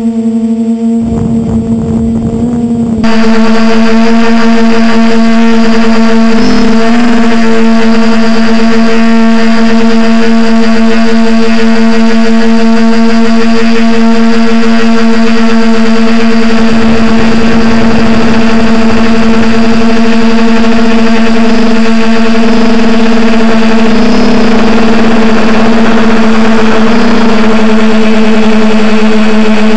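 DJI F450 quadcopter's brushless motors and propellers, heard from the onboard camera: a loud, steady whine. About three seconds in it jumps louder, with a rush of air noise over it, and the pitch wavers slightly a few times.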